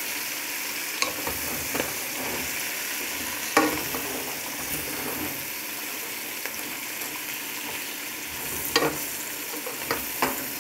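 Shredded cabbage and meat sizzling in a steel pot, stirred with a wooden spoon, with a steady hiss and several sharp knocks of the spoon against the pot.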